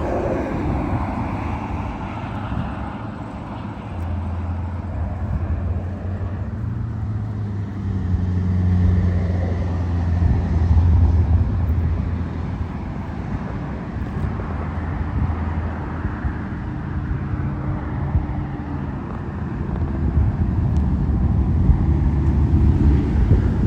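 Car engine running with road noise, steady with slow swells in level, heard from inside the moving car.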